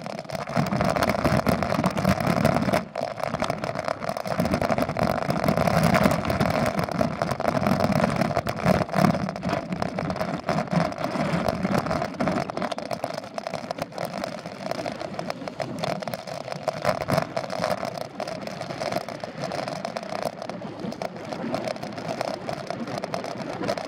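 Mountain bike rolling along a dirt fire road: a steady rush of knobby tyre noise and wind on the microphone, with small knocks and rattles as it runs over bumps.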